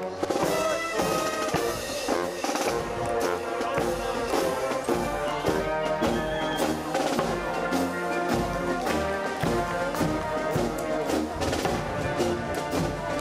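Marching brass band playing a march as it parades past, with trombones, trumpets and sousaphones carrying the tune over a steady beat.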